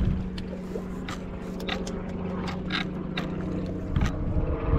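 A boat motor running steadily with a low hum, with a scattered handful of sharp clicks and some low knocks of the rod-mounted camera being handled.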